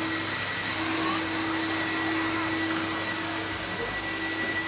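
Wet-and-dry shop vacuum cleaner running steadily through its hose: a constant rushing hum with a thin high whistle on top.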